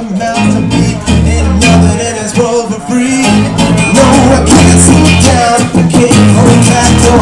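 Live band music played loud: an electric guitar strummed over a heavy bass line.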